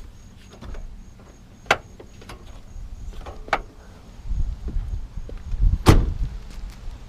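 Ford Crown Victoria car door being worked open and shut: a few sharp clicks and knocks, then a loud slam about six seconds in.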